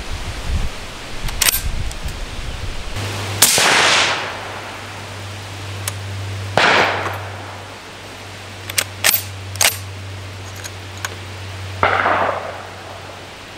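Suppressed Merkel Helix .308 Win straight-pull rifle firing three shots, a few seconds apart, each a sharp report that trails off in an echo. Short sharp clicks come in between the shots.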